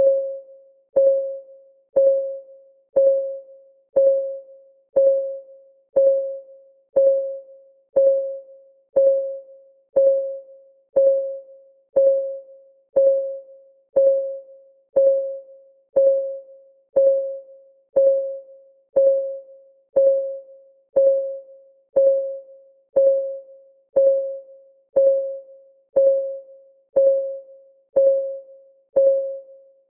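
Clock ticking sound effect for a countdown timer: one tick a second, each a short click with a brief, pitched ring that fades quickly.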